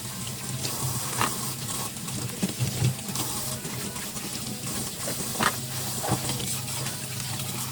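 Water running in a kitchen sink while dishes are washed, with a few light knocks of dishes or utensils.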